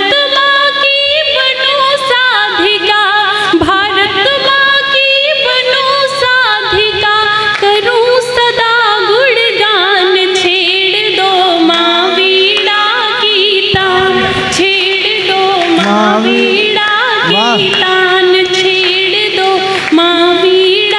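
A woman singing a devotional song to Saraswati, a wordless passage of wavering, ornamented notes over steady held accompaniment notes.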